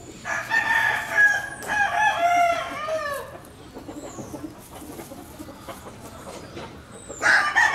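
Young Kelso gamecock crowing: one long crow of about three seconds that falls in pitch at its end, and a second crow starting near the end.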